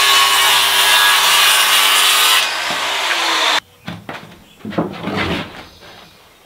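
Milwaukee circular saw cutting through a 2x4 board: the blade leaves the wood about two and a half seconds in and the motor runs on for another second before the sound stops abruptly. Then scattered wooden knocks and scrapes as lumber is handled and set down.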